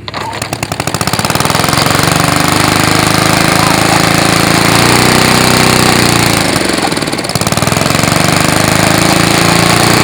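1950s Johnston push lawn mower's small engine catching on a cold start after years unused. It fires unevenly for about a second, settles into a steady run, sags in speed about seven seconds in and picks back up.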